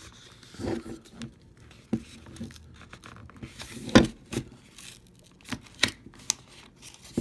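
A U-lock's retail packaging being handled and worked open by hand: scattered crinkling and tearing with irregular sharp clicks and knocks, the loudest about four seconds in.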